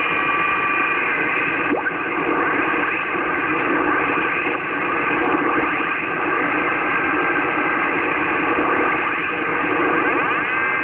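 Kenwood TS-850S HF transceiver's receiver on the 80-meter band putting out loud, steady static and interference noise, with several steady whistling tones over it that slide in pitch near the end as the dial is tuned. It is the heavy band noise at the station, bad enough to bury weak signals.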